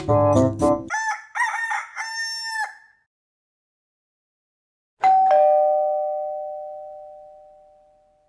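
Piano music ends, then a kitten gives one wavering meow that rises and falls over about a second and a half. After a silence, a two-note ding-dong chime sounds about five seconds in and rings out, fading slowly.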